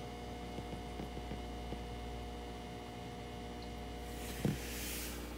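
Steady low electrical hum, with a few faint ticks and a single knock near the end, followed by a short hiss.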